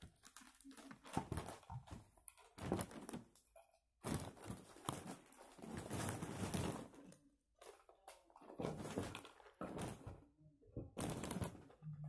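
Paper or plastic wrapping being handled, rustling and crinkling in irregular bursts with a few knocks.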